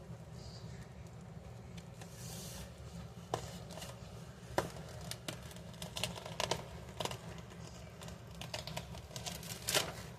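Handling noise: irregular sharp clicks and taps, clustered in a few bursts with the loudest near the end, over a steady low hum.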